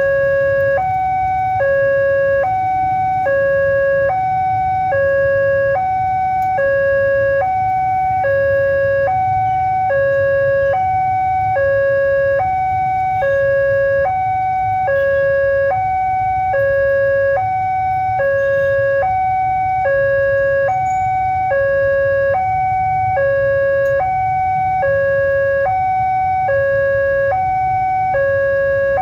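Railway level-crossing warning alarm from a pole-mounted loudspeaker sounding a steady two-tone signal: a low and a high tone alternating evenly, each about half a second. It warns that a train is approaching and the crossing is closed.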